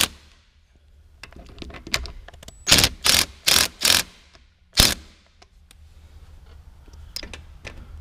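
Ratchet wrench clicking in short strokes as a short shifter's mounting bolt is run down: one stroke at the start, then a run of five about half a second apart. The bolt is thought to be a hair too long and close to bottoming out.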